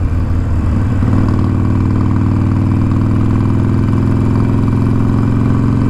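Harley-Davidson Iron 1200 Sportster's air-cooled V-twin engine running at a steady pitch, heard through a microphone inside the rider's helmet with the visor down.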